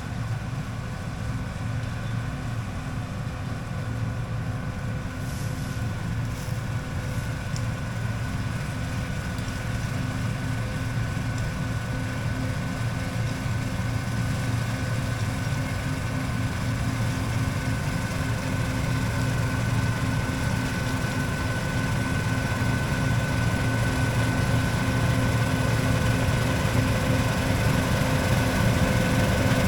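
Farm vehicle's engine running steadily with a low hum and a thin steady whine, slowly growing louder.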